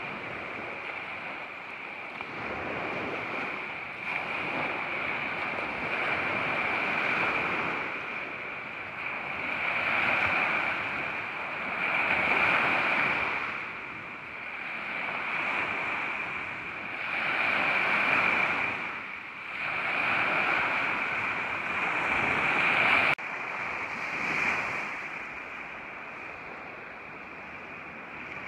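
Small lake waves lapping and breaking at the shoreline of Lake Erie, swelling and falling every two to three seconds.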